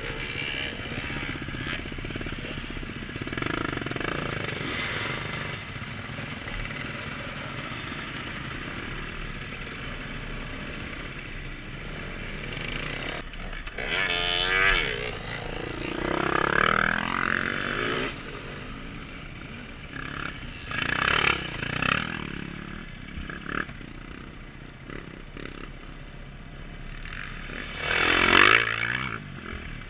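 Dirt bike engines running and revving on a gravel track. Several times bikes accelerate close past, each one a loud engine note that sweeps up and then down in pitch: around the middle, and again near the end.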